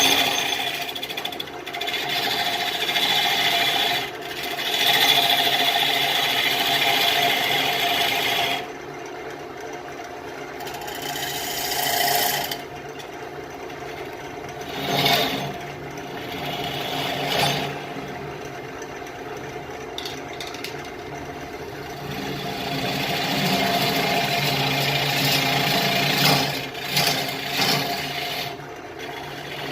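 Wood lathe running while a turning tool cuts a Russian olive bowl blank, a rasping scrape over the steady motor hum that swells and fades as the tool is pushed in and eased off.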